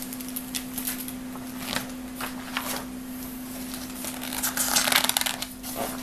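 Paper rustling and light clicks as a book page is handled, with a longer, louder rustle about four and a half to five and a half seconds in. A steady low hum runs underneath.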